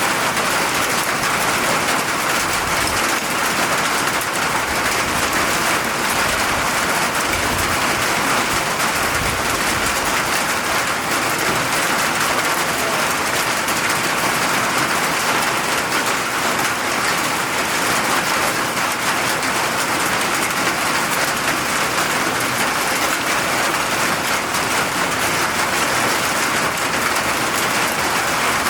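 Steady rain falling, an even hiss of drops on surfaces that neither builds nor fades.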